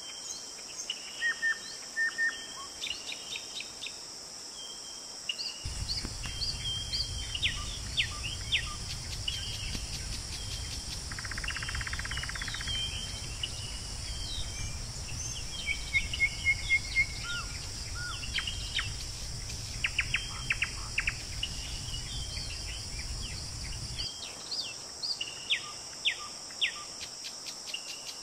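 Early-morning birds chirping and calling in short, scattered notes over a steady high drone of insects. From about six seconds in until near the end, a low rumble sits underneath.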